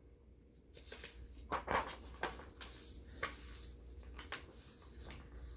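A picture book's page being turned: a few faint, short paper rustles and light handling knocks, over a faint steady low hum.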